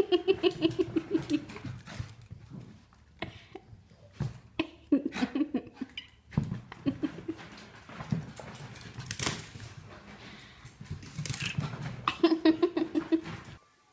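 Baby laughing in quick rhythmic bursts of giggles at the start and again near the end, with quieter scattered sounds between.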